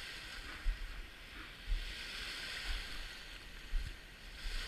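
Small waves washing in and out along a gravel lake shore, the wash swelling and easing, with wind buffeting the microphone in irregular low thumps.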